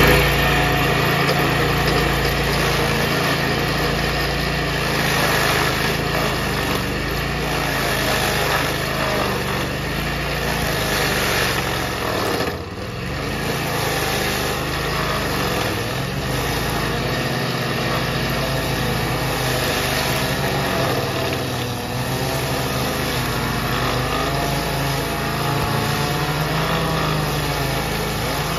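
Small gasoline engine running steadily under load, driving a custom wood lathe whose cutter head mills a spinning log round and chips the wood. The sound dips briefly about halfway through.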